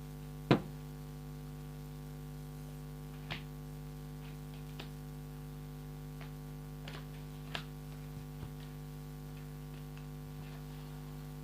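Tarot cards being handled and laid down: one sharp tap about half a second in, then a few faint clicks, over a steady electrical hum.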